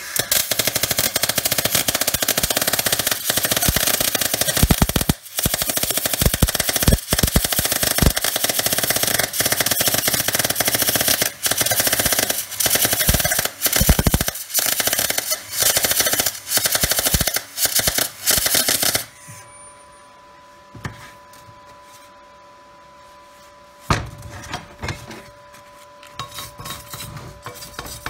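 MIG welder arc crackling as a bead is run along the inside seam of a steel diff pan, with the voltage and wire speed turned up. The arc runs in several stretches with short breaks, then stops about two-thirds of the way through. A knock and light clatter follow as the pan is handled.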